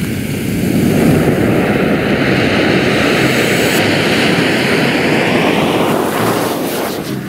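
Homemade match-powered jet firing on a toy truck: a loud, steady rushing hiss of burning match heads venting through the cylinder's nozzle, with a change in the sound about six seconds in.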